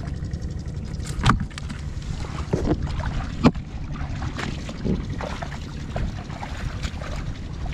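Footsteps sloshing and squelching through the shallow water and mud of a flooded rice paddy, with a few sharper splashes, over a steady low wind rumble on the microphone.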